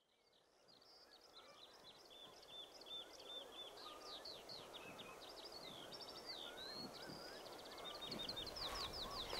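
Birds singing over a faint outdoor rush: a rapid, varied stream of high chirps, trills and sweeping notes. It fades in about a second in and slowly grows louder.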